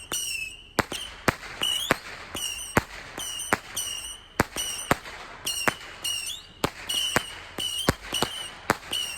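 Fireworks going off, about a dozen sharp bangs at uneven intervals, with a short high whistling tone repeating between them.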